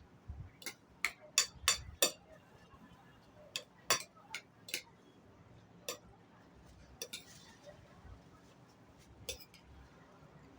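Cutlery clinking against a plate during a meal: a quick run of sharp clinks in the first couple of seconds, then single clinks every second or two.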